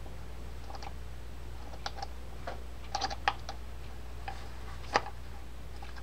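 Small metal reel parts and a pick clicking and tapping irregularly while a baitcasting reel's star drag adjuster is worked onto its main shaft, over a low steady hum.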